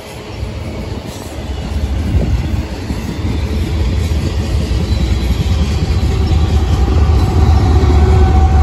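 Freight train rolling past, the wheels rumbling and clattering over the rails. The sound grows steadily louder as a pair of mid-train diesel locomotives draws near, and their low engine drone builds in the second half.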